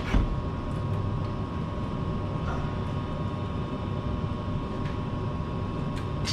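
Steady low hum and rumble with a faint steady whine, and a sharp click just after the start.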